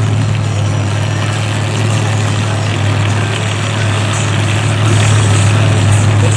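A vehicle engine running steadily at a constant low hum, with no revving, under a wash of broad outdoor noise.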